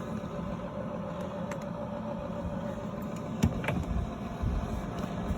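Blower fan on a Wood Doctor outdoor wood furnace running with a steady hum, forcing air onto the fire. Two short knocks sound a little over three seconds in.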